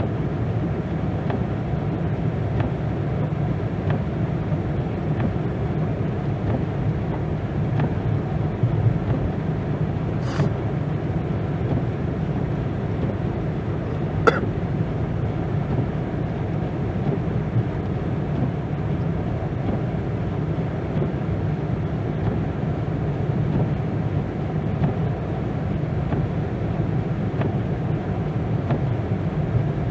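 Steady low rumble of a car driving, with two brief clicks about ten and fourteen seconds in.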